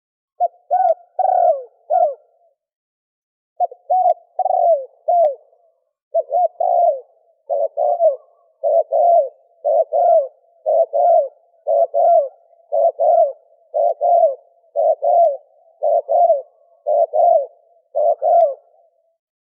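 Male spotted dove cooing: two short phrases of three or four low notes, then a long run of coos repeated about once a second, each a pair of notes. This is the male's call used as a lure to draw in females.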